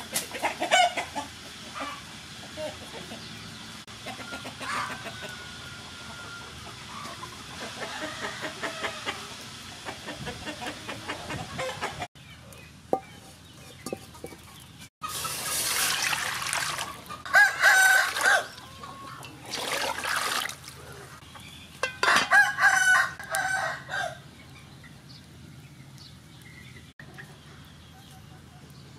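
Free-roaming chickens: a rooster crowing a few times in the second half, with hens clucking earlier on.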